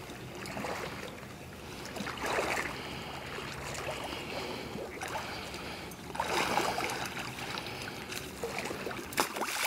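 Water swishing and sloshing around a hunter's chest waders as he wades through waist-deep water, with stronger surges of splashing about two seconds in, around six seconds in, and near the end.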